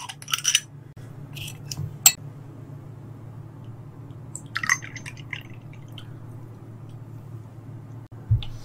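Soju poured from a glass bottle into a small shot glass, a short gurgling fill about four and a half seconds in. It follows a run of clicks from the bottle's cap at the start. A sharp glass knock comes near the end, over a steady low hum.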